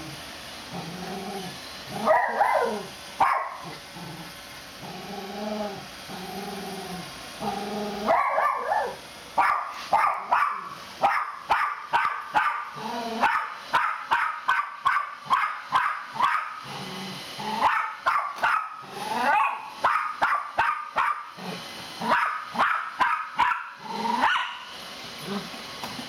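Miniature pinscher growling low at a robot vacuum, with a couple of sharp barks. After about eight seconds it breaks into rapid barking, several barks a second, in long volleys that stop near the end.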